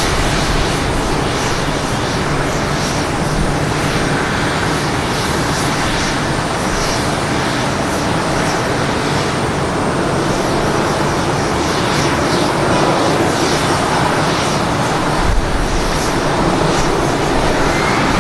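Jet engines of a Boeing 787-9 airliner running at the airport, a steady loud rushing noise with a faint whine that shifts in pitch.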